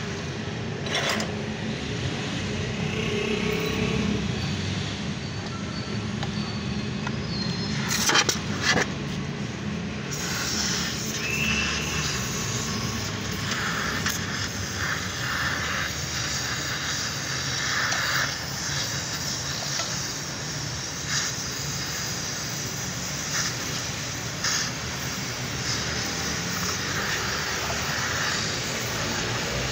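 Oxy-acetylene gas welding torch hissing steadily on a steel car-seat frame while filler rod is fed in; the hiss becomes fuller and brighter about ten seconds in. A couple of sharp knocks come about eight seconds in.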